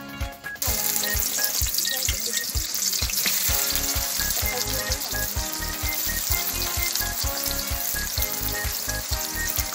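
Sliced onions frying in hot oil in a black kadai, a steady loud sizzle that starts suddenly a little over half a second in as the onions hit the oil. Background music with a steady beat plays underneath.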